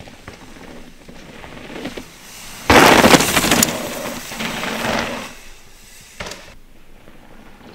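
A mountain bike rushing past on a dirt trail, its knobby tyres tearing through the soil. The rush starts suddenly about three seconds in, is loudest for about a second, then fades over the next two, with one short sharp crack later on.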